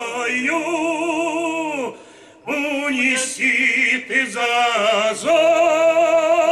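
Two male voices singing a Cossack folk song in harmony, drawing out long notes with vibrato, with a brief break for breath about two seconds in.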